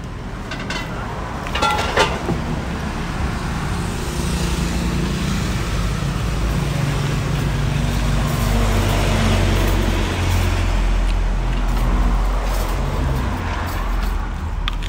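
A motor vehicle engine passing close by: a low rumble that builds from about four seconds in and eases off near the end, over street traffic noise. A couple of sharp clicks about two seconds in.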